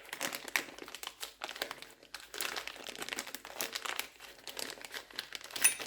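Plastic packaging crinkling as it is handled and opened, a dense run of irregular small crackles.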